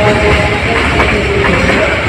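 A train running past, the loud steady rumble of its wheels on the rails.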